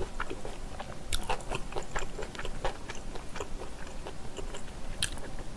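A person chewing a mouthful of spicy bulgogi with glass noodles: wet mouth clicks and smacks, irregular, several a second.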